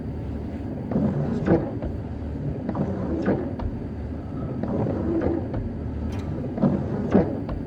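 Windscreen wipers sweeping across the glass with a knock at the turn of each stroke, often in pairs about half a second apart, over the steady low hum of a vehicle.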